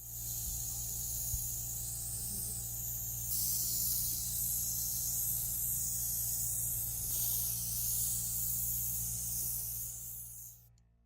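Compressed air hissing steadily from an air-powered spray or blow gun, starting and cutting off abruptly, over a steady low motor hum.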